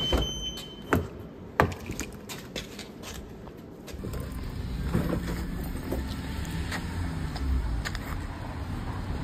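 A car's exterior door handle pulled and the door opened: sharp clicks and knocks in the first two seconds. A steady low rumble follows from about four seconds in.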